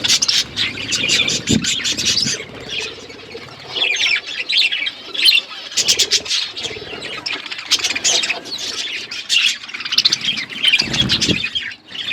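Budgerigars chattering and chirping continuously, several birds at once, with quick clicks and an occasional low thump.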